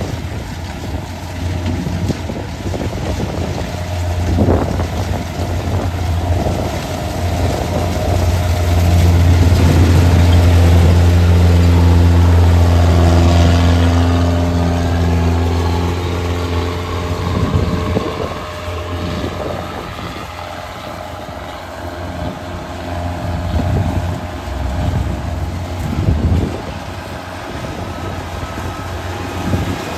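Kubota rice combine harvester's diesel engine running steadily under load while cutting and threshing rice, as a loud, low drone that swells for several seconds around the middle.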